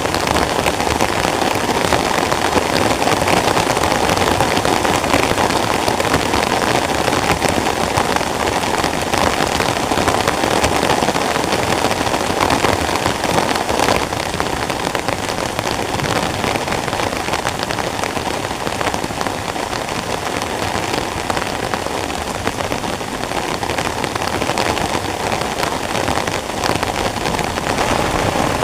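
Heavy rain drumming steadily on a tent, a dense, even patter of drops.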